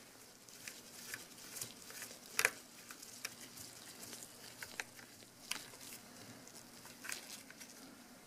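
Faint, irregular small clicks and taps from a precision screwdriver working the tiny screws out of a Canon EOS 6D's body and from the camera's plastic shell being handled, with one sharper click about two and a half seconds in.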